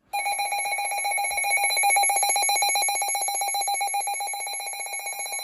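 Emergency Alert System attention tone: a loud, continuous electronic alarm tone with a rapid even pulse, signalling that an emergency alert broadcast is about to begin.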